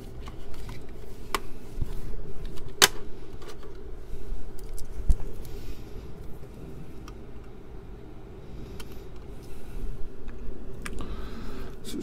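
Clicks and light clatter of a 3.5-inch floppy drive being handled and set down on top of a CD-ROM drive, with a sharp click about three seconds in, over a steady low hum.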